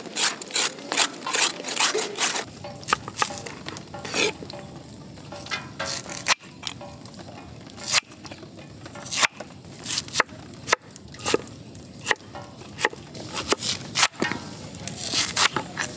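A ladle stirring and scraping in a cooking pan over sizzling food. Sharp clinks come thick and fast at first, then every so often over a steady sizzle.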